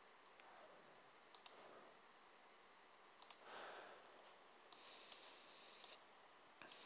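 Faint computer mouse clicks, a handful of single clicks and quick double clicks, over near-silent room tone.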